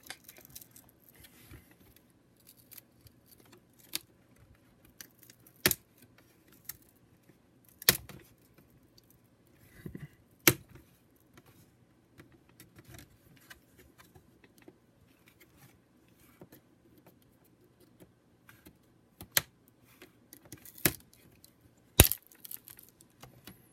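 Plastic laptop screen bezel being pried off its frame with a screwdriver: a series of sharp, irregular clicks and snaps as the retaining clips pop loose, with soft handling rustle between them.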